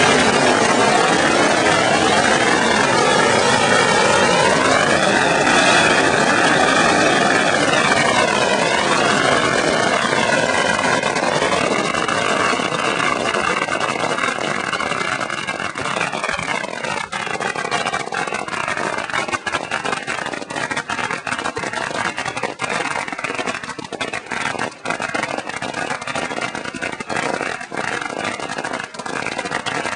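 Hundreds of strung firecrackers going off in a rapid continuous crackle, the pops so dense they merge into one unbroken rattle. About halfway through it thins, and separate sharp bangs stand out.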